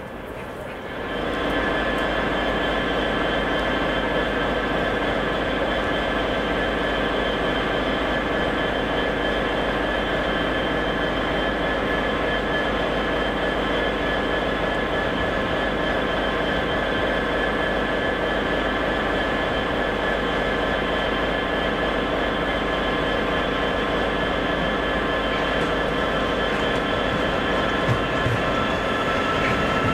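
A train running steadily: a low drone with several steady whining tones that hold their pitch. It comes up about a second in and then stays even.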